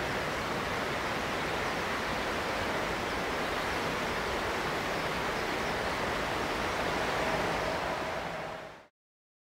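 Steady rushing of shallow river rapids, with the distant roar of a Boeing 767-300 climbing away after take-off mixed in. The sound fades out about nine seconds in.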